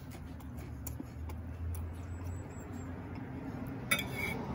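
A metal fork clinks against a ceramic plate twice near the end, each clink sharp with a short ring.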